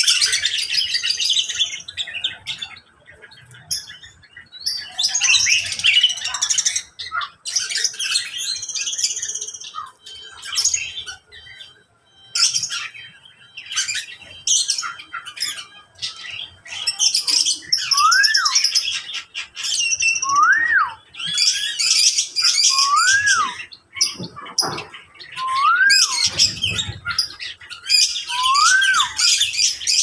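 Many caged birds in a mixed aviary of small parrots and finches chirping and squawking together. In the second half, one bird repeats a clear whistled note that rises and falls, five times, about every two and a half seconds.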